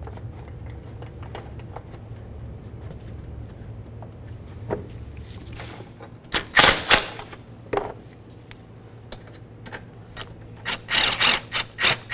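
A cordless power tool running in short bursts as the plastic splash shield's 8 mm bolts are run in and snugged up. There are two loud bursts about six and a half seconds in, another a second later, and a quick string of short bursts near the end.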